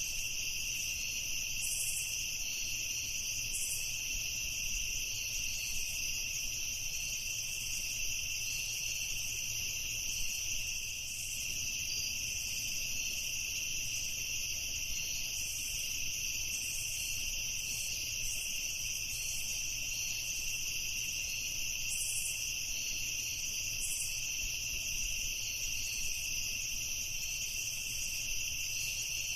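A continuous night chorus of crickets: several insects trilling steadily at different pitches, with a faster pulsing chirp higher up.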